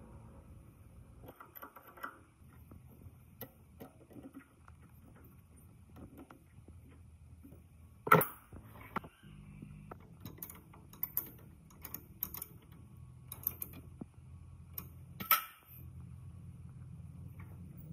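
Scattered metallic clicks and knocks of a pump motor's rotor and tools being handled at a small metal lathe while the rotor is set in the three-jaw chuck. A sharper clack comes about eight seconds in and another near fifteen seconds.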